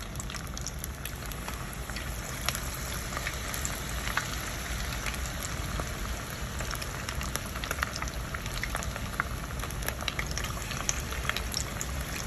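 Conch fritters deep-frying in hot oil: a steady sizzle and bubbling, dotted with frequent sharp crackles and pops.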